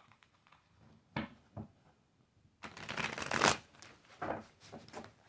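Tarot cards being shuffled by hand: two soft taps, then a dense stretch of shuffling about a second long near the middle, followed by a few shorter shuffles and taps.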